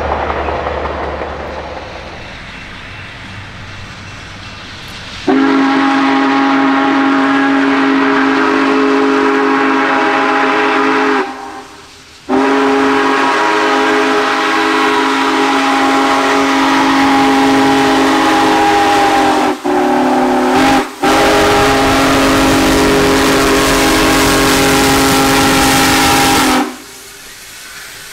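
Union Pacific Big Boy 4014's steam chime whistle sounding the grade-crossing signal: two long blasts, one short, one long, a loud chord of several steady tones. Before it, the rumble of a passing train fades away.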